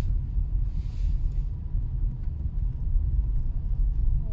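Steady low rumble of a car's engine and tyres heard from inside the cabin while driving slowly on a snow-covered street, with a soft hiss in the first second or so.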